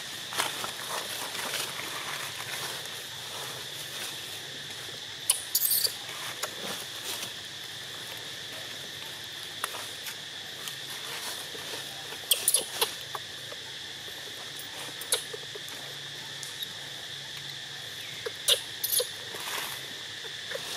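Short, high squeaks from a baby long-tailed macaque, heard three times: about five seconds in, around twelve seconds, and near the end. A steady high insect drone runs underneath.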